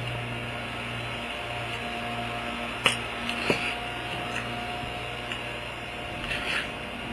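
Steady low machine hum, like a fan or appliance running, with two sharp clicks about three seconds in and a few soft ticks near the end.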